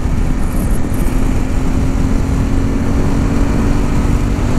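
Honda CRF1100L Africa Twin DCT riding at highway speed: heavy wind rush over the helmet microphone with the parallel-twin engine's steady drone underneath.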